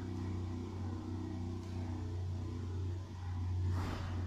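Engine of a grass-cutting machine running outdoors, a steady low drone that swells a little near the end.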